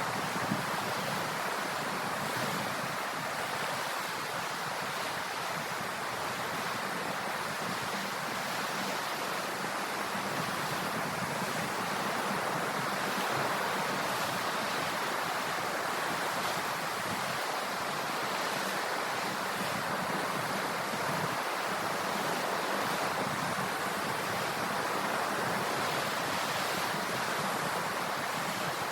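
Sea waves washing on the shore in a steady, even rush, with no single breaker standing out.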